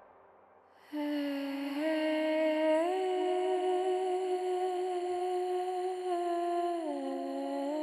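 A wordless humming voice holding long, slow notes, stepping up twice and sliding back down near the end, as the closing music begins after about a second of near silence.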